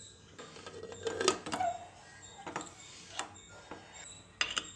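Light metal clinks and knocks of an aluminium pressure cooker's lid being fitted and locked shut, a handful of separate taps over a few seconds.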